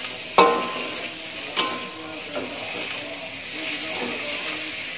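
Garlic, galangal and bay leaves sizzling in oil in a steel wok while a metal spatula stirs and scrapes them. The spatula clangs against the wok twice, loudest about half a second in and again about a second later.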